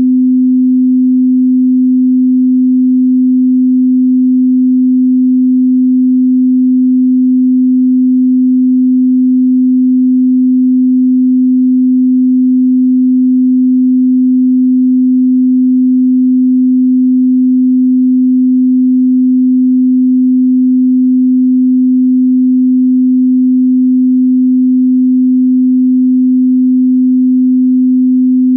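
A pure 255 Hz sine-wave test tone, one steady low hum that stays the same pitch and loudness throughout, with no overtones.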